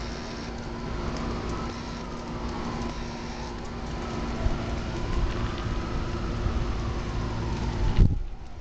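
A fire engine siren wailing, rising and falling slowly, over a steady engine rumble and a crackling hiss, with a loud knock near the end.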